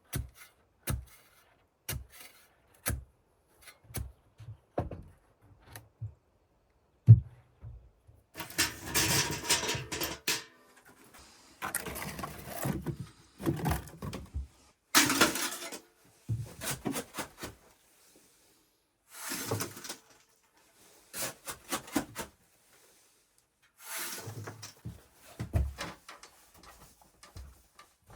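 Handling noises: scattered knocks and taps, one sharper knock about seven seconds in, then several bursts of scraping or rustling, each a second or two long.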